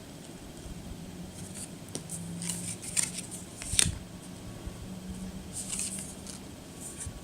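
Yu-Gi-Oh trading cards and their pack wrapper being handled: crinkly rustling and sliding, with a couple of sharp clicks about three and four seconds in.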